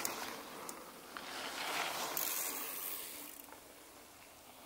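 A mountain bike rolling along a dirt trail: wind rush on the camera microphone and tyre noise that swells twice and then fades, with a few light clicks and rattles from the bike.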